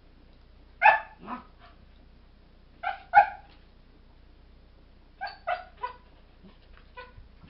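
Airedale Terrier puppies barking and yipping at each other during play: short high-pitched yips in quick pairs about a second in and around three seconds, a run of three or four between five and six seconds, and a couple of fainter yips near the end.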